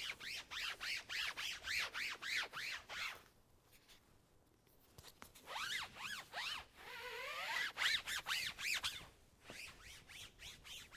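Foam applicator pad rubbed back and forth over an OEM-style 1967 vinyl convertible top, working in black top gel. It makes a squeaky rubbing at about four strokes a second, each stroke rising and falling in pitch, with a pause about three seconds in and fainter strokes near the end.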